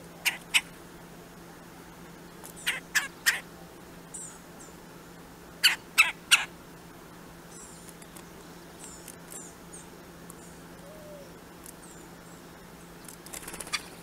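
Red-bellied woodpecker pecking in a wooden box feeder: sharp knocks in short runs of two or three, about three a second. A rustling flutter near the end as it flies off.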